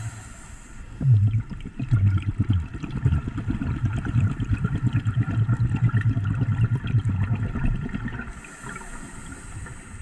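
Scuba diver breathing through a regulator underwater: an inhalation hiss stops just before a second in, then a long exhalation of bubbles gurgles for about seven seconds, and the next inhalation hiss starts a little after eight seconds.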